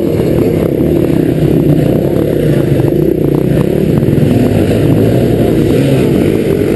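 Several enduro motorcycles climbing a muddy hill together, their engines overlapping and the pitch wavering as the riders work the throttle.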